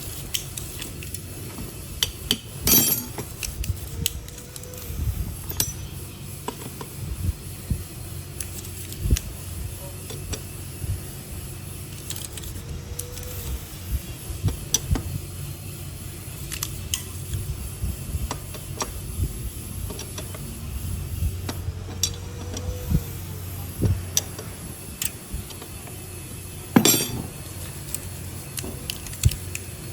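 Irregular metallic clinks and taps of hand tools and metal parts being handled on a workbench, over a steady low hum, with two louder knocks.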